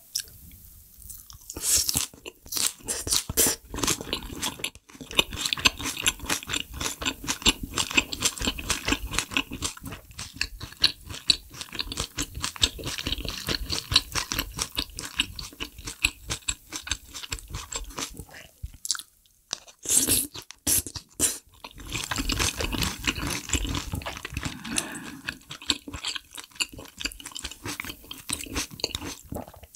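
Close-miked chewing and crunching of food, with dense wet mouth clicks, pausing briefly a little past halfway.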